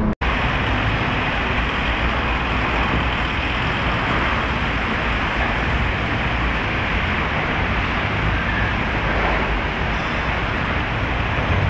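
Steady road traffic noise: the engines and tyres of a line of cars and a small flatbed truck on a busy street, an even rumble and hiss without distinct events.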